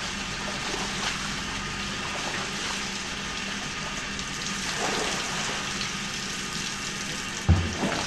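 Water running steadily while a dog is bathed, with one dull thump near the end.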